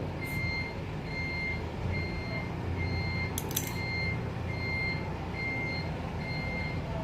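A steady electronic beep of one pitch repeating evenly, about four beeps every three seconds, over a low steady rumble.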